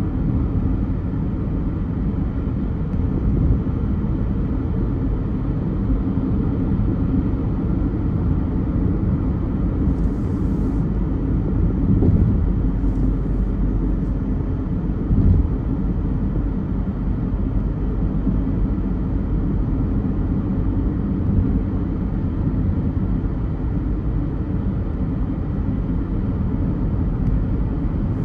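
Car driving in traffic: a steady low rumble of road and engine noise, with a few small bumps and a brief faint hiss about ten seconds in.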